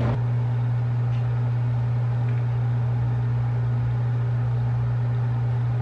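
A loud, steady low hum with a faint hiss above it.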